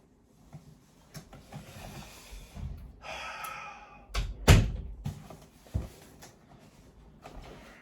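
Scattered clicks and knocks, a short rushing noise about three seconds in, then a loud thud about four and a half seconds in and a smaller one a second later.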